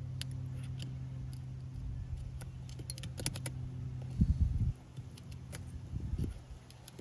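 Light clicks and ticks of small repair tools and phone parts being handled, over a steady low hum. About four seconds in there is a dull handling bump, after which the hum drops away.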